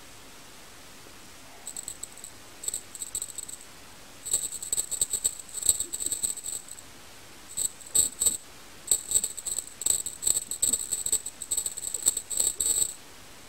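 A small jingle bell jingling in quick irregular bursts as a kitten rolls and bats at a wand toy: a few shakes about two seconds in, then near-continuous jingling for most of the rest.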